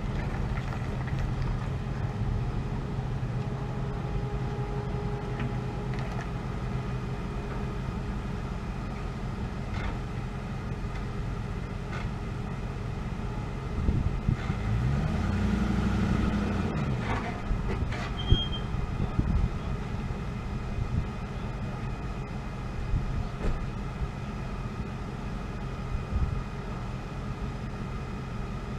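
A vehicle engine running steadily with a low hum. It swells for a few seconds a little past halfway, its pitch rising and falling as the vehicle moves, with a few sharp knocks around then.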